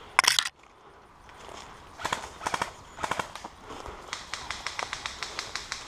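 Footsteps hurrying over dry leaf litter on a forest floor, a quick crunching rhythm that turns fast and even in the second half. A loud, short crackling burst comes right at the start.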